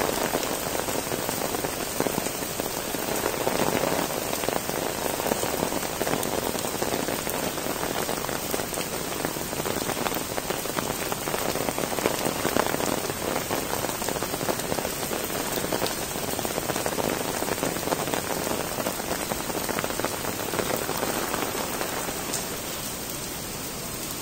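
Steady rain falling on wet stone paving, a dense patter of drops, a little softer near the end.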